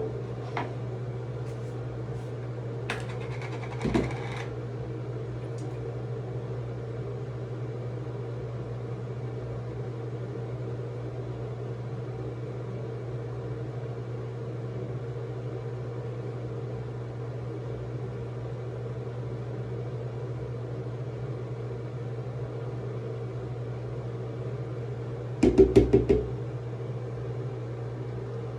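Steady low electrical hum, like a fan or appliance running, with a few sharp clicks in the first few seconds and a quick cluster of knocks near the end from objects being handled.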